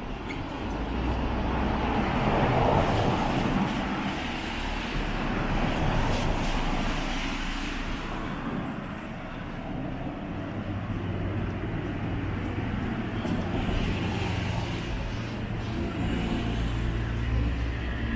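Cars passing on a city street: traffic noise that swells and fades twice, then a steady low engine hum from about ten seconds in.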